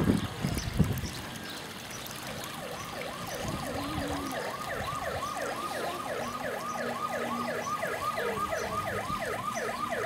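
A siren sounding in rapid yelps, its pitch rising and falling about four times a second. It starts about two and a half seconds in, after a knock about a second in.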